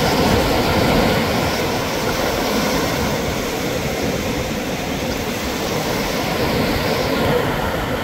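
Strong wind buffeting the microphone, a loud steady rumble, over the wash of breaking surf.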